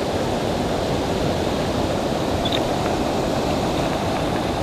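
Steady rushing noise of flowing creek water mixed with wind buffeting the microphone.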